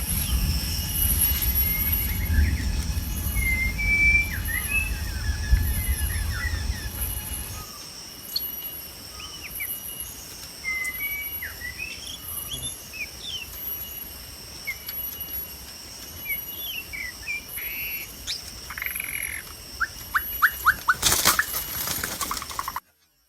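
Wild birds giving short chirps and calls over a steady, pulsing insect drone, with a low wind rumble for the first third. Near the end comes a quick run of ticks, then a loud rustling burst, before the sound cuts off suddenly.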